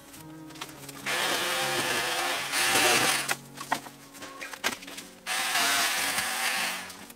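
VOLTAGA ET1612 20 V battery pole chainsaw running in two bursts of about two seconds each, starting about a second in and again after about five seconds, its chain cutting thin regrowth bamboo stems at ground level.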